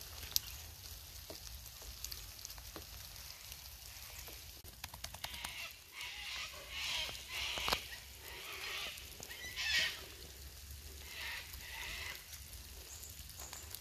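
Footsteps crunching on a wet dirt-and-gravel bush track, a short step about every second through the middle of the stretch, over light rain with a steady low wind rumble on the microphone.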